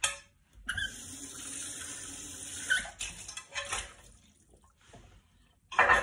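Water running from a kitchen tap into the sink for about two seconds, then shut off, followed by a few light clinks of dishes.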